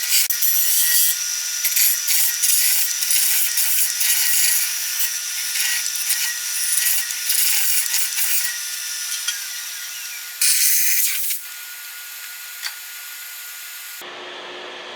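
A tool rubbing scratchily on wood, as in sanding or rasping, continuous for about ten seconds, then a short louder burst and a quieter steady hiss.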